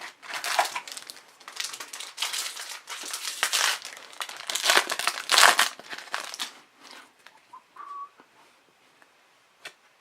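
The foil wrapper of an Upper Deck hockey card pack being crinkled and torn open, with irregular rustling for about six seconds that then dies away to a few faint handling sounds.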